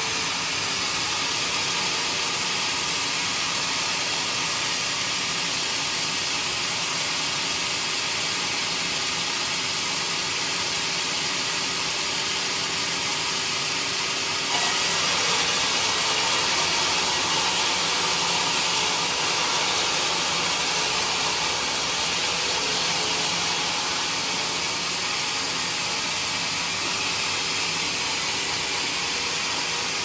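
Band sawmill blade cutting lengthwise through mahogany with the saw running: a steady hiss with a few faint steady tones. It gets louder and brighter about halfway through.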